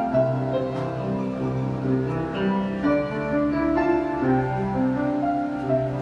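Grand piano playing a melody over sustained chords, the notes changing about every half second.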